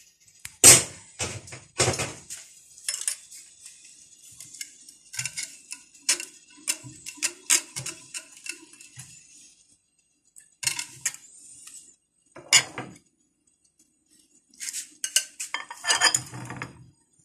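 A metal wire whisk clinking and scraping against a glass bowl while whisking thick tahini, in irregular strikes with a couple of short pauses.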